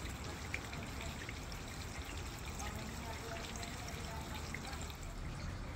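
Water dripping and trickling: many small irregular drips over a steady low background rumble.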